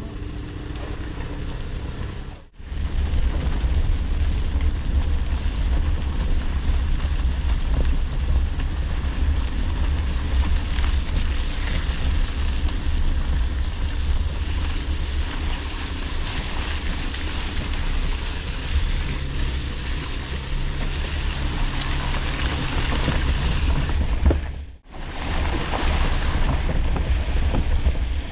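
A vehicle on the move: a steady low rumble of engine and road noise with a rushing hiss over it, cutting out briefly twice, about two and a half seconds in and near the end.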